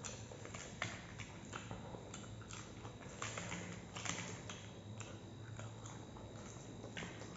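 A person eating by hand, chewing with soft mouth sounds, while fingers break crisp papad and mix it into rice on a plate. The sound is faint, with irregular small crackles and clicks.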